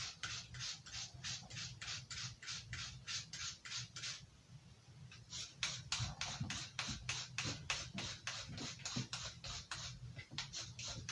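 Steel knife blade drawn in short, even strokes across a fine-grit sharpener, about three strokes a second, breaking off briefly about four seconds in and again near the end before resuming.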